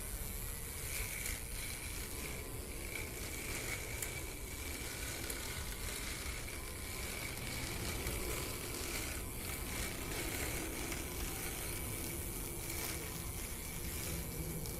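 Remote-control lawn mower built on an RC crawler at work, its 775 motors spinning box-cutter blades, held at 5 volts by a step-down regulator for a lower blade speed. Steady hissing with a thin high whine and occasional brief ticks.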